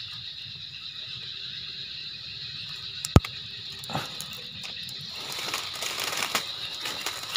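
Insects, crickets by the sound, trilling steadily on one high note, with faint rustling, a single sharp click about three seconds in and a softer knock a second later.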